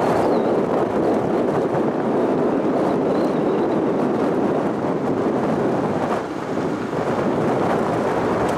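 Steady rushing road and wind noise of a car driving at speed, with no engine note or other events standing out.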